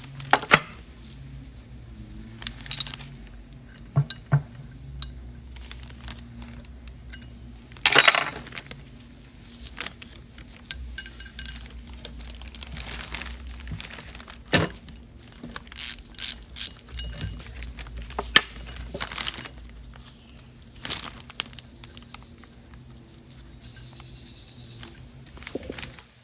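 Wrenches and metal brake parts clinking and clanking in scattered sharp metallic clicks and knocks, with one loud clank about eight seconds in.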